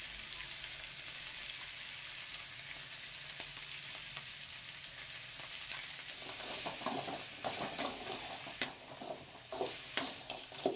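Crab pieces sizzling steadily in hot oil in a pan with spices. From about six seconds in, a spatula scrapes and knocks irregularly against the pan as the mixture is stirred.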